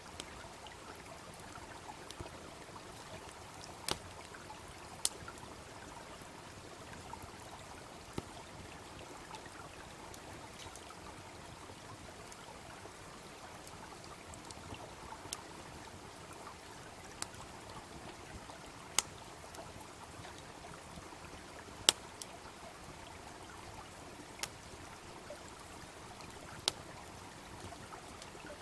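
Wood fire crackling with scattered sharp pops, a few of them loud, over the steady rush of a babbling brook.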